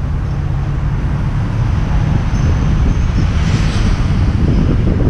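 Steady low rumble of a car driving slowly on a town street, picked up by a camera mounted on the car's hood, with a brief hiss about three and a half seconds in.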